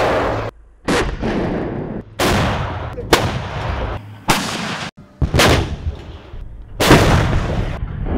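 AS90 155 mm self-propelled howitzer firing: about six heavy reports, each with a long rumbling decay, following one another at intervals of about one to one and a half seconds, several of them cut off abruptly.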